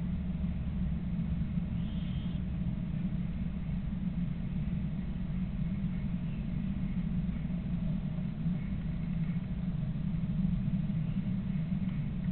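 Steady low rumble, with one brief faint high chirp about two seconds in and a few faint high ticks later on.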